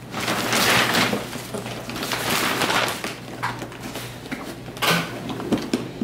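Brown kraft paper wrapping rustling and crinkling in several long swishes as it is pulled off, with a cardboard box being handled and knocked a few times.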